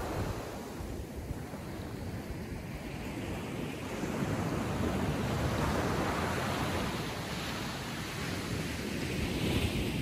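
Atlantic Ocean waves breaking and washing up the shore: a steady surf hiss that swells about four seconds in as a wave breaks, eases off, then builds again near the end.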